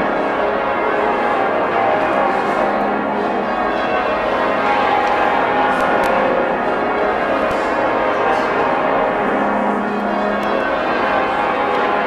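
Change ringing on a heavy ring of tower bells, cast by Mears and Stainbank in 1939 with an 82-hundredweight tenor in A-flat, heard from the ringing room. Bell strikes follow one another in a continuous stream, their tones overlapping and ringing on.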